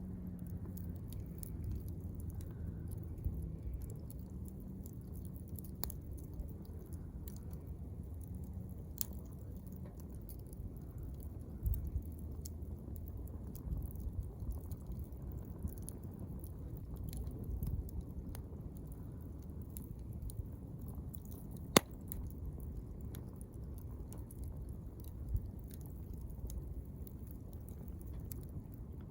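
Wood campfire crackling, with scattered sharp pops over a steady low rumble; one loud pop about 22 seconds in.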